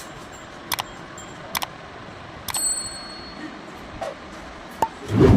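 Scattered sharp clicks and taps, one giving a brief metallic ring, then a heavy dull thud at the end: tools and plywood being handled during carpentry work.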